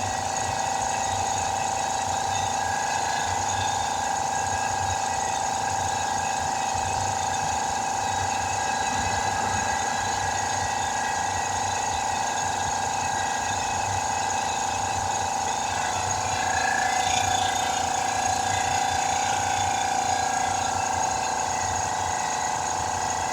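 Portable air compressor running steadily, its motor note stepping slightly higher and louder about two-thirds of the way through.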